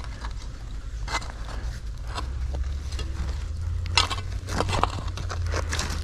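Hand digging in dirt and rubble: scraping and crunching with a few sharp clicks of a tool or glass knocking, over a low steady rumble.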